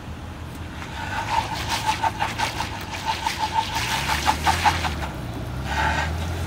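Nissan Patrol Super Safari's 4.8-litre straight-six running at low revs as it crawls over articulation ramps, the engine note getting louder about four seconds in as it takes load. Over it, a rapid string of short high chirps or squeaks of one pitch, several a second, runs for about four seconds, with one more brief chirp near the end.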